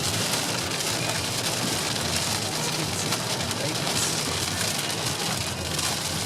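Heavy rain beating on a car driving along a motorway, heard from inside the cabin as a steady hiss over the low, even drone of the engine and tyres.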